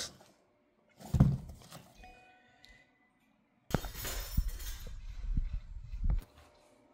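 Handling noise as a running shoe and the phone filming it are moved about close to the microphone: a short low thump about a second in, then a couple of seconds of rustling and rubbing with a few low knocks, stopping abruptly near the end.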